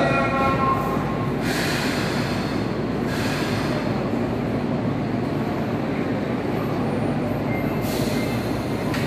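A Sendai Subway Namboku Line train pulling slowly into an underground station platform and braking to a stop, running with a steady rumble and some wheel squeal. Short hisses come about a second and a half in, at three seconds, and near the end.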